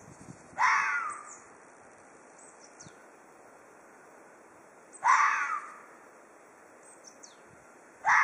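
Ezo red fox giving its threat call: short cries, each falling in pitch and lasting about half a second, about four seconds apart, with a third starting right at the end.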